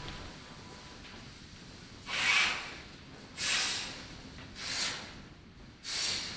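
Electronic sound installation giving short puffs of hissing noise. There are four in a row, about a second and a quarter apart, and each swells and fades in about half a second. They start about two seconds in, over a faint steady hiss.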